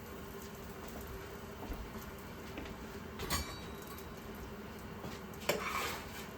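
Kitchenware clinking: a sharp clink about three seconds in, then a louder clatter near the end, over a faint steady hum.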